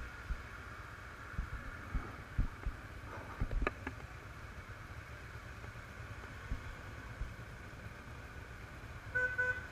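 Motorcycle engine running low as the bike rolls to a stop in slow town traffic, with irregular low thumps of wind buffeting on the helmet-camera microphone during the first few seconds. A short beep sounds about nine seconds in.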